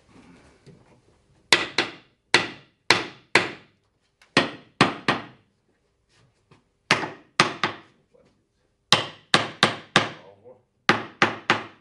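A hand hammer striking a wooden furniture frame in quick groups of three to five sharp blows with short pauses between, about eighteen in all, knocking the mortise-and-tenon joints of a display shelf home during assembly.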